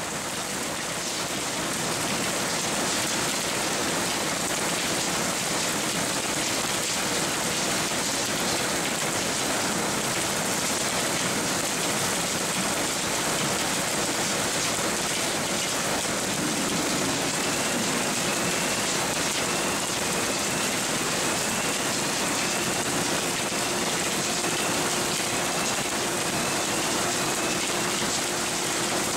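Onions tumbling over the turning rollers of an onion top-tailer, a steady dense rustle and rattle of dry skins and bulbs. Faint short rising squeaks repeat about once a second in the second half.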